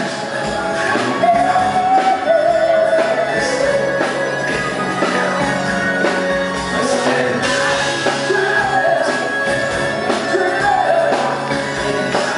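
Live band playing with a singer, a steady beat underneath.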